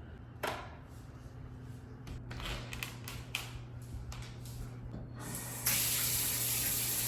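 A few faint knocks, then a steady hiss of spraying water that starts about two-thirds of the way in.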